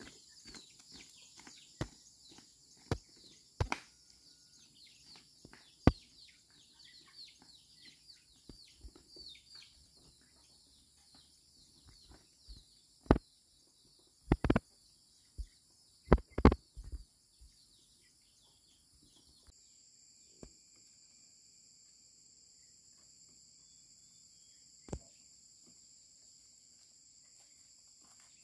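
Outdoor forest ambience: a steady high-pitched insect drone with quick chirps over the first half, broken by scattered sharp knocks and clicks, the loudest a cluster about halfway through.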